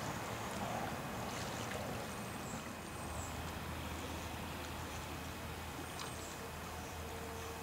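Steady rushing noise of a shallow creek running over stones, with a low steady hum underneath and a few faint, short high chirps.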